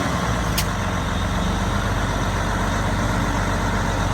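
Semi truck's diesel engine running steadily under load as the stuck truck tries to drive out of soft ground, the truck sinking instead of moving. A short sharp click about half a second in.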